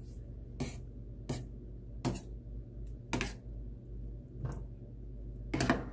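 Metal spoon clinking against the side of a stainless-steel saucepan while soup is stirred: six or so sharp clinks, roughly one a second.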